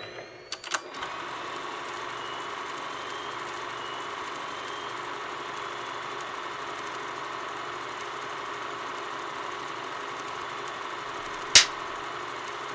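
Film projector running: a steady mechanical whir and clatter, with a few clicks in the first second as it starts. Near the end a single sharp clap, a clapperboard snapping shut.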